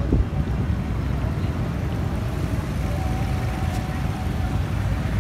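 Steady low rumble of wind buffeting the microphone, mixed with the noise of street traffic.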